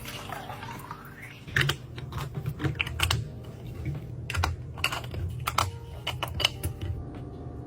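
Quick, irregular clicks and taps of household items being handled and set down during a kitchen restock, over a steady low hum. It opens with a sound rising in pitch that lasts about a second and a half.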